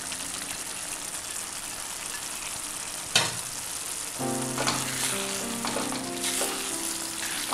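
Fried chicken and masala sizzling in a frying pan while being stirred, with a sharp clack of a utensil against the pan about three seconds in and a few fainter scrapes later. Background music with held notes joins in the second half.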